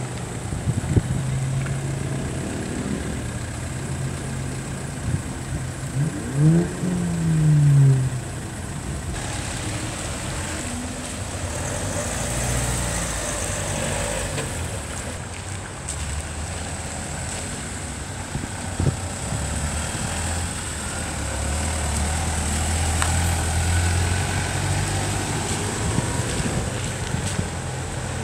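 Several cars drive slowly past on a wet road, their engines running steadily over tyre hiss. About six seconds in, one engine revs up and back down briefly, the loudest moment.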